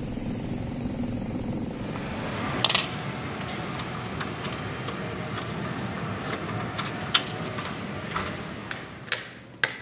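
Street traffic rumble, then, about two seconds in, a set of keys jangling and clicking against the metal floor lock of a glass door as it is unlocked. Sharp metallic clicks come throughout, loudest in a cluster shortly after the change.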